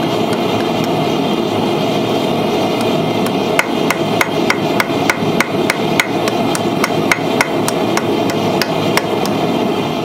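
Hand hammer striking hot angle iron on the horn of a steel anvil in a steady rhythm of about three blows a second, the strikes ringing more brightly from about three and a half seconds in. A steady noise runs beneath the blows.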